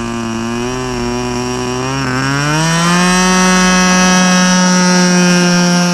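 Small combustion engine of a Global E Z Cessna 182 radio-control model airplane running just after being started: an idling buzz that is throttled up about two seconds in, rising in pitch, then holds a higher steady speed.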